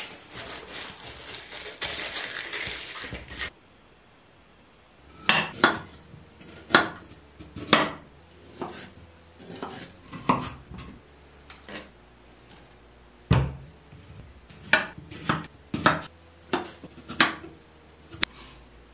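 Kitchen knife chopping vegetables (julienned carrot, then cucumber) on a wooden cutting board: a dozen or more sharp, irregularly spaced knocks of the blade on the board. For the first three seconds or so there is a dense rustling noise, which stops suddenly before the chopping begins.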